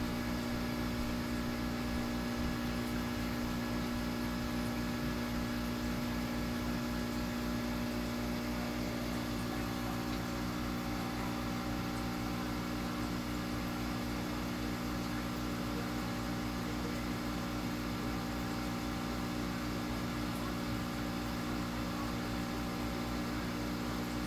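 Steady low hum of a small motor running, with a faint hiss over it and no change throughout.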